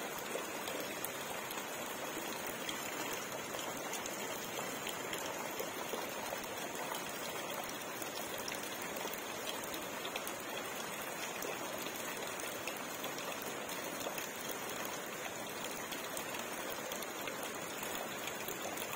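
Steady splashing of water, many small drop-like ticks over an even hiss, without a break.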